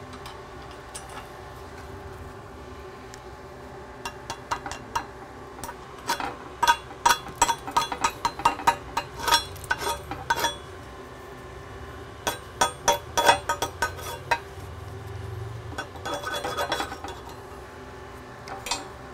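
Chipping hammer knocking slag off a fresh flux-core weld on a steel plate: several bursts of quick, sharp metallic clinks that ring briefly in the plate.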